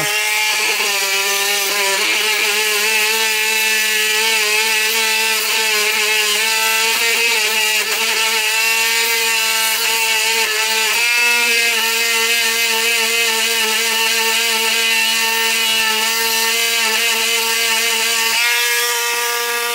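Small handheld rotary tool running with a steady high whine, its pitch wavering as the bit bears on the pop bumper's metal spoon switch to clean it. The pitch shifts slightly about halfway through and again near the end, and the tool cuts off right at the end.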